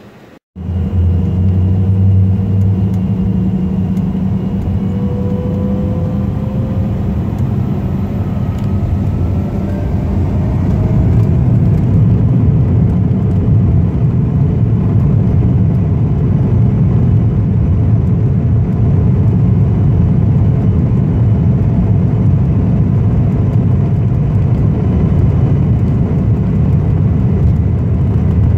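Jet airliner engines heard from inside the cabin: a loud low rumble with a faint whine that rises in pitch over the first several seconds as the engines spool up, then holds steady.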